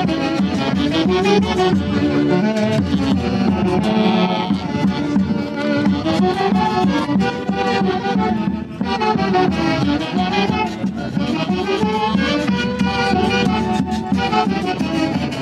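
Traditional Andean festival orchestra music: several melodic instruments play a tune together, loud and continuous.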